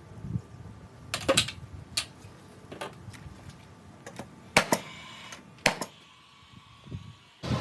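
Irregular sharp knocks and clicks of hand tools and lumber being handled, with a few louder strikes about a second in and again around four and a half and nearly six seconds in.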